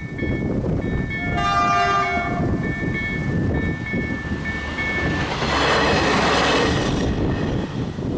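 Level-crossing KLD-4103 slow-ringing warning bells striking about twice a second while the crossing is closed. A train horn sounds briefly about a second and a half in. From about five seconds in, a louder rushing noise with a faint tone, like a train going by, rises over the bells.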